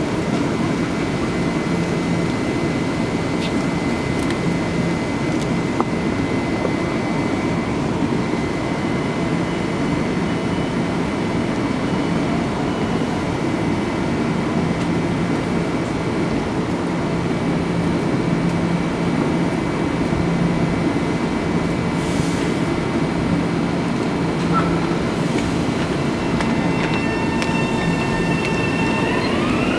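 A Bombardier M7 electric multiple unit stands at the platform with a steady hum and a faint high whine from its on-board equipment. Right at the end its traction motors start with a steeply rising whine as the train begins to pull away.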